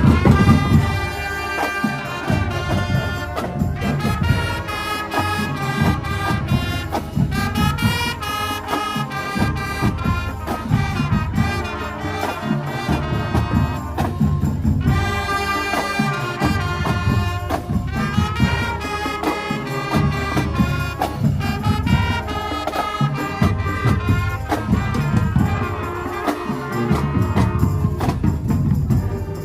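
Marching band playing: brass melody over a driving drumline.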